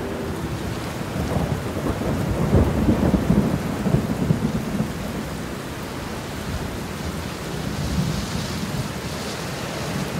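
Thunder rumbling over steady rain, the rumble building about a second and a half in, loudest for a couple of seconds, then fading away.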